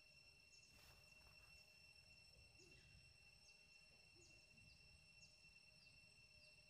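Near silence: faint forest ambience with a steady high-pitched insect drone and brief high falling chirps about twice a second. There is a brief soft rustle about a second in.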